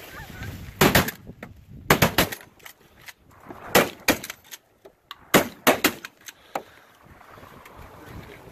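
Several shotguns firing a ragged volley of about a dozen shots in quick clusters of two to four, starting about a second in and ending around two-thirds of the way through. After that, only faint wind noise remains.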